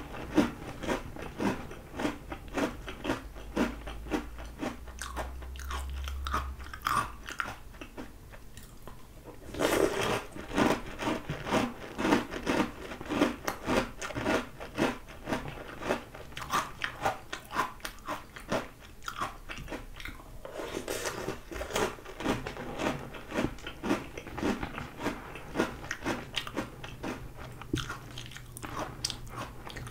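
Close-miked crunching and chewing of Oreo O's chocolate cereal, a fast run of crisp crunches. There is a brief lull about eight seconds in before a fresh, louder mouthful.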